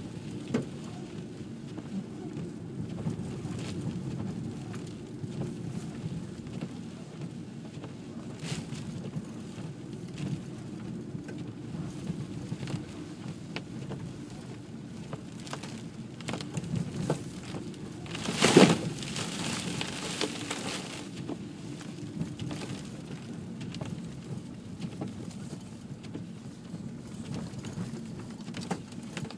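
Car cabin noise while driving on a snow-covered road: a steady low rumble of engine and tyres with scattered ticks and patter, and one loud sharp knock about two-thirds of the way through.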